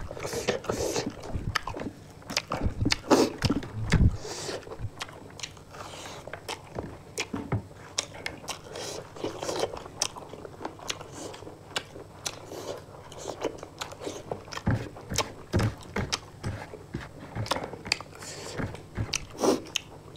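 Two people chewing and biting a meal of chicken fry and rice, with many short crunches and wet mouth clicks.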